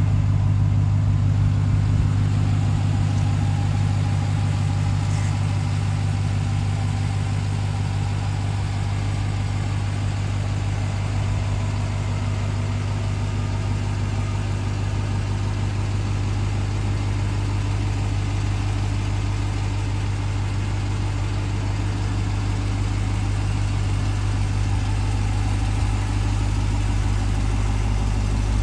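Ram 1500 TRX's supercharged 6.2-litre Hemi V8 idling steadily, a deep even rumble with no revving.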